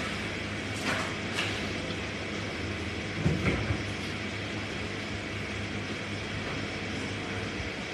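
Steady machine-like hum and hiss, with a few light knocks and clicks, the loudest cluster a little past three seconds in.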